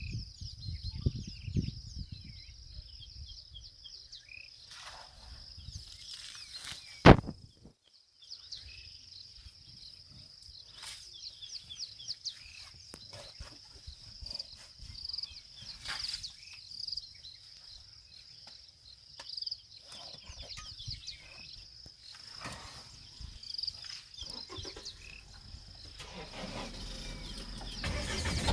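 Steady high-pitched insect drone with scattered bird calls. A sharp click comes about seven seconds in, and a low rumble builds near the end.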